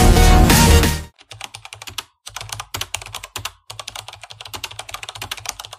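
Electronic background music stops about a second in, followed by rapid computer-keyboard typing clicks in three runs with short pauses between them, ending abruptly.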